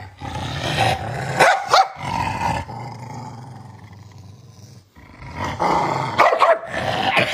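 Dog growling steadily as a warning while its paw is held, breaking into short, sharp snarls twice in the first two seconds and twice more near the end. The growl fades quieter in the middle.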